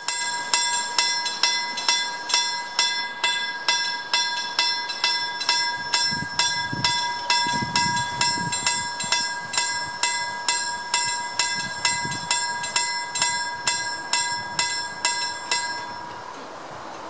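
Railway level-crossing warning bell ringing in quick, even strokes, about two a second, while the crossing barrier lowers. The ringing stops near the end, once the barrier is down.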